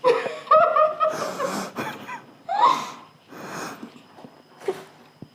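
Muffled laughter and loud snorting breaths through the nose from people eating with their mouths full, in several short bursts.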